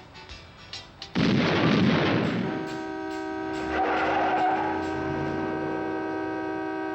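A sudden loud explosion about a second in, dying away over a second or so, followed by a car horn sounding one steady, unbroken chord.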